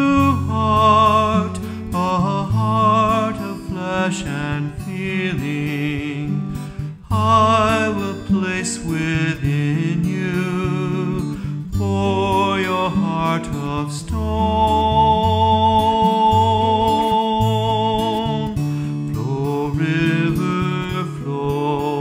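A man singing with vibrato while accompanying himself on acoustic guitar. He holds one long note about two-thirds of the way through.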